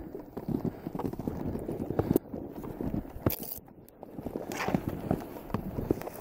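Snowshoe footsteps crunching in deep fresh snow, a rapid irregular series of soft crunches, with a short brushing hiss a little past three seconds as the walker pushes past snow-covered branches.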